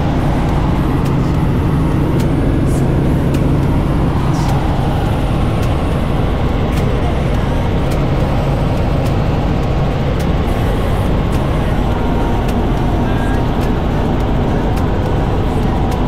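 Light helicopter in flight heard from inside the cabin: steady, loud engine and rotor noise with a constant low hum under a wash of wind and airframe noise.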